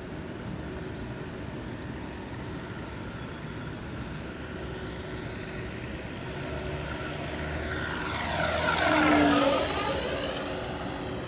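Radio-controlled Flightline Corsair F4U-1A, its propeller and onboard sound system playing a simulated warbird engine, flying a pass at full throttle. A steady engine drone swells to its loudest about nine seconds in as the plane goes by, then fades with a drop in pitch.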